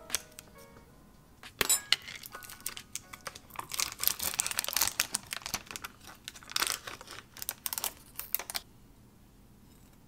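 Crinkling, peeling and crackling of packaging with sharp plastic clicks, as a paper label is peeled off a glass jar and the plastic lid is pried off a yogurt tub. The sounds come in irregular clusters over several seconds and stop abruptly near the end.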